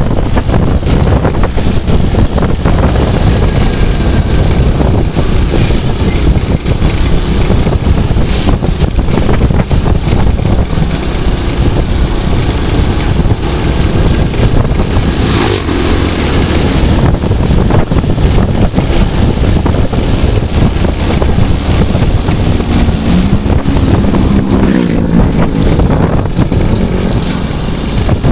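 Riding noise from a motorcycle on the move: loud wind rush on the microphone over the running engine and tyres on asphalt. For a few seconds near the end an engine note climbs in pitch.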